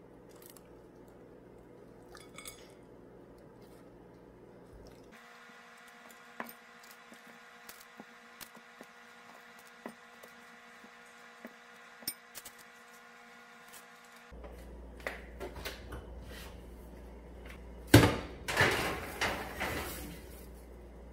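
Soft small taps as raw chicken wings are set down in a baking dish, then, about three-quarters of the way through, a glass baking dish clanks onto a metal wire oven rack and the rack rattles for a couple of seconds as it slides in.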